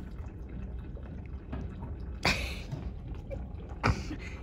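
Library room tone: a steady low hum, with two short rustling noises about two and four seconds in, the second starting with a soft knock.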